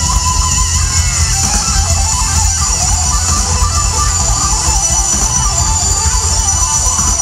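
Live rock band playing loud through a large concert PA: strummed guitars over drums and heavy bass, continuous.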